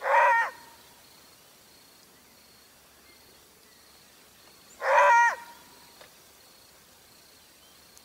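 Two short, flat-pitched animal calls, one at the start and one about five seconds later, each lasting about half a second, over a faint outdoor background.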